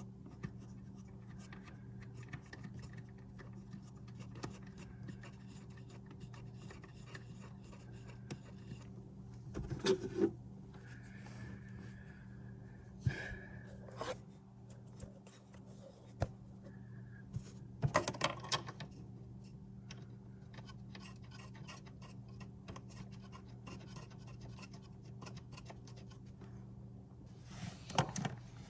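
Hand work on the car: scattered small clicks and scraping, with a few louder knocks about ten, thirteen, eighteen seconds in and near the end, over a steady low hum.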